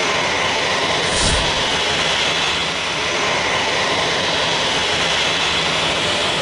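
Jet aircraft engines running steadily: an even, unbroken roar, with a brief low thump about a second in.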